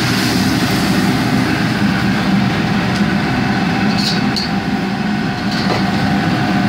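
Loud, steady roar of a commercial kitchen's cooking range, with two light clicks about four seconds in.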